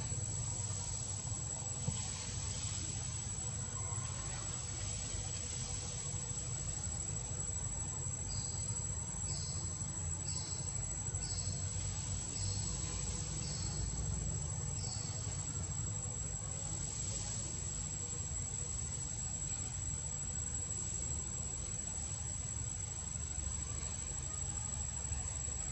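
Steady high-pitched insect drone, with a run of about seven short high chirps, about one a second, midway through, over a low rumble.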